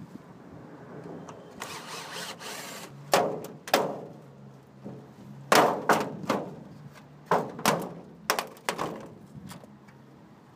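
A cordless drill whirs briefly about two seconds in. Then comes a series of sharp knocks and thumps as the old plastic dome skylight and its metal frame are worked loose and lifted off the curb.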